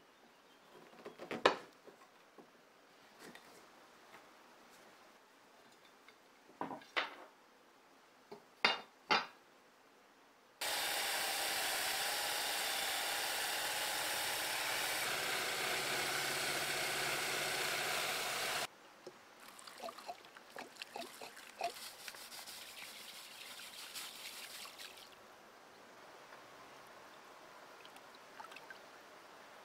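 A hammer striking a steel punch a few times to drive the old handle off a billhook, then a brass wire wheel on a cordless drill whirring against the rusty blade for about eight seconds, stopping suddenly. After that come scratchy rubbing sounds and faint water sounds from the blade soaking in a basin.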